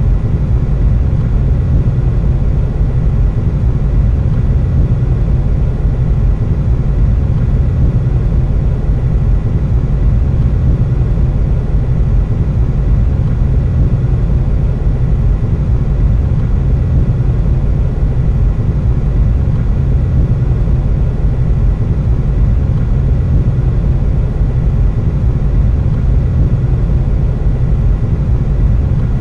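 Steady low rumble of a car driving, its road and engine noise heard from inside the cabin.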